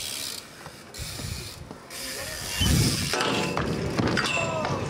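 BMX rider and bike crashing onto concrete: a heavy thud a little past halfway, then a run of sharp metallic clicks and clatter from the tumbling bike.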